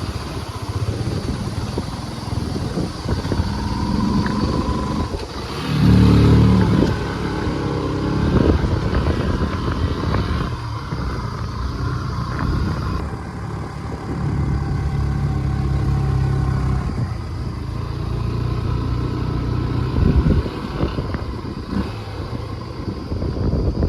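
A vehicle engine runs under load on a rough off-road track. The engine note rises and falls as the throttle changes, with a louder surge about six seconds in and another near twenty seconds.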